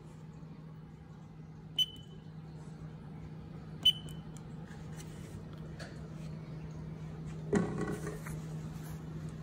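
Haas control pendant keypad beeping twice, short high beeps about two seconds apart as keys are pressed, over a steady low hum. Near the end there is a thump with a brief buzz.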